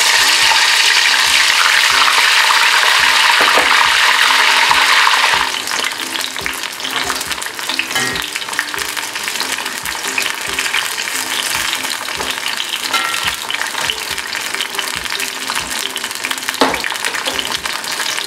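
Flour-coated corn kernels deep-frying in hot oil in a kadai, just after they went in: a loud, dense sizzle for about the first five seconds, then settling to a quieter, steady crackle and bubbling.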